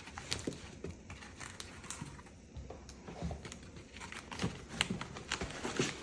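Plastic packaging crinkling and clicking as it is pulled from a box, in irregular sharp crackles that come thicker in the second half.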